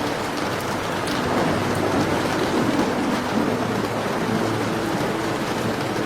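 Steady rain on a surface, with a low rumble swelling and fading about two to three seconds in.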